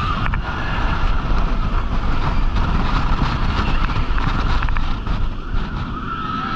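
Roller coaster train speeding along steel track: a steady heavy rumble of wheels and structure, mixed with wind rushing over the on-board camera microphone.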